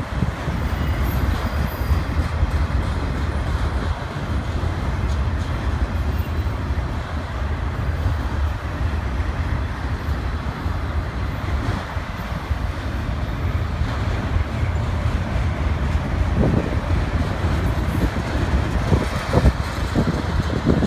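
Freight train of autorack cars rolling past, a steady rumble and rattle of wheels on rail. A few sharp knocks come in the last few seconds.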